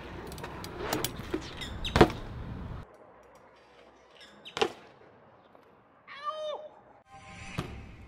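BMX bike rolling over concrete with clicks and knocks, then a hard landing impact about two seconds in, the loudest sound. After a cut, a second landing thump comes a little past the middle.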